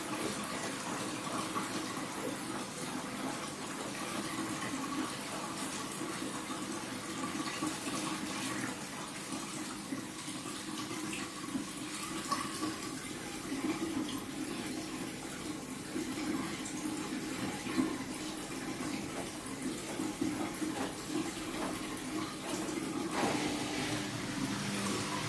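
Hoover washing machine's drain pump running, water rushing and gurgling out of the drum as the last rinse drains. Near the end a new steady hum starts.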